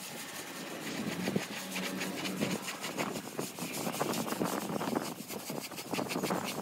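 A hand float rubbing over the cement render of a wall in quick, repeated scratchy strokes as the render is floated to a finish.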